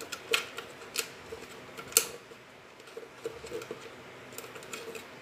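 Thin PET bottle plastic crackling and clicking as its snipped cut edge is bent inward by hand: a few sharp clicks, the loudest about two seconds in.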